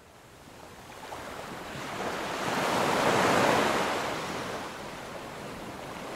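Rush of ocean waves, a sound effect for the water-splash logo, swelling to a peak about three seconds in and then easing off.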